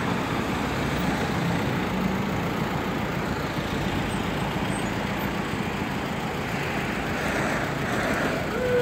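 Cars and vans of a motorcade passing close by on a city road: a steady, even wash of tyre and engine noise. A falling tone begins right at the end.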